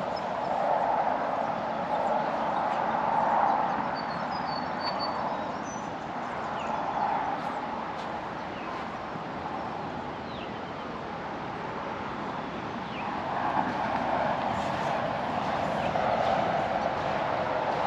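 Road traffic going by as a steady rushing noise that swells louder twice, as vehicles pass, with a few faint bird chirps about four seconds in.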